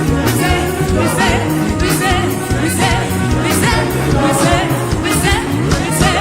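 Live gospel praise music: a band with drums and bass playing an upbeat song with a steady beat, with voices singing over it.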